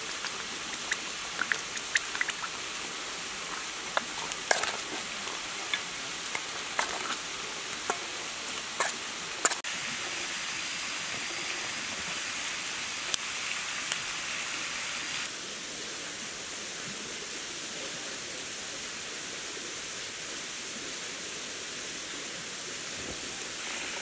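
Steady rushing of a waterfall. Scattered sharp clicks and clinks run over the first ten seconds or so, then one more click a little later, with the water noise going on alone after that.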